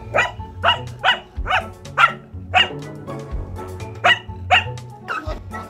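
Welsh corgi barking: six sharp barks at about two a second, a pause, then two more, over background music.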